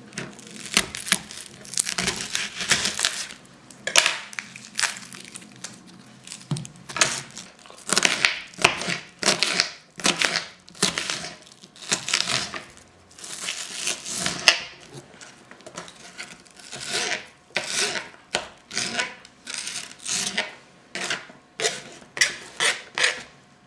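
Kitchen knife cutting an onion on a plastic cutting board: repeated crunching cuts through the layers with the blade knocking on the board, coming in irregular runs of strokes.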